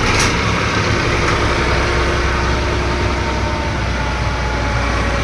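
Engine of a ground-drilling machine running steadily under load, a continuous loud mechanical drone with a low hum.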